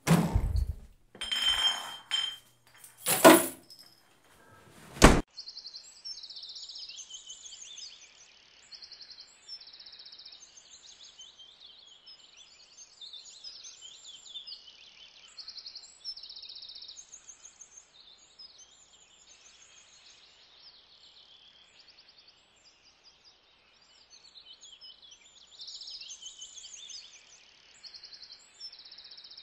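A few loud knocks and clinks over the first five seconds, the last a single sharp click. After that, high-pitched trilling chirps repeat in short bursts.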